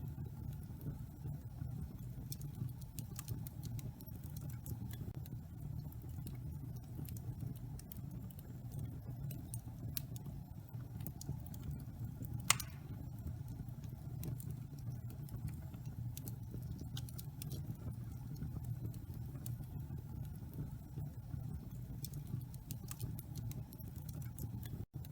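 Wood fire burning in a fireplace: a steady low rumble with scattered small crackles, and one sharper pop about halfway through.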